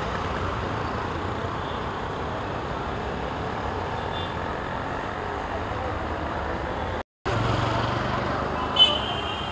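Steady outdoor street noise of traffic and a large crowd walking along the road. The sound cuts out for a moment about seven seconds in, and a short sharp sound with a high ringing tone follows near the end.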